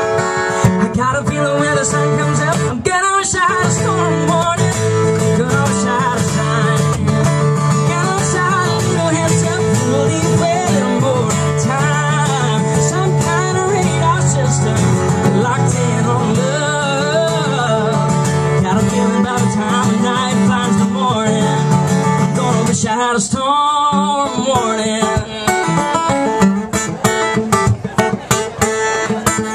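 A single acoustic guitar strummed under a male voice singing a country song live, with the singing dropping away for a guitar passage near the end.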